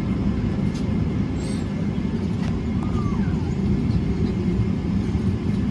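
Steady low rumble of cabin noise inside a Boeing 777-300ER airliner, with a few faint ticks over it.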